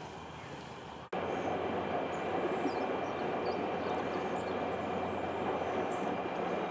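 A steady rushing noise, cutting out for an instant about a second in and coming back louder, with small birds chirping high above it.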